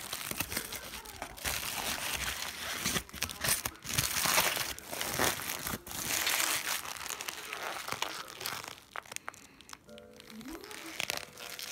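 Paper burger wrapper crinkling and rustling as it is handled and opened, in loud bursts that die down about nine seconds in.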